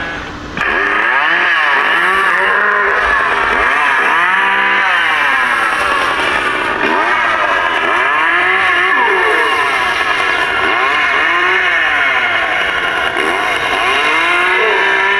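Recorded chainsaw engine sound played by the Spirit Halloween Leatherface animatronic as it swings its prop chainsaw. The engine pitch rises and falls over and over in revving sweeps, broken briefly just after the start.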